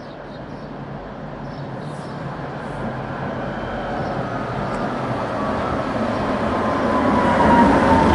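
City tram approaching, its running rumble growing steadily louder. In the second half a thin high tone joins in, sliding slowly down in pitch.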